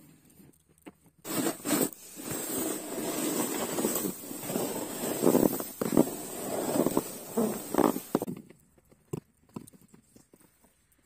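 A hand snow pusher scraping and ploughing through deep snow, with crunching footsteps, loud and noisy from about a second in until about eight seconds; after that only a few faint crunches.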